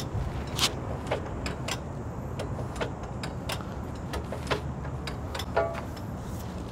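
Irregular metal clicks and knocks from old iron machinery being worked by hand, with a short squeaky ring about five and a half seconds in, over a steady low rumble.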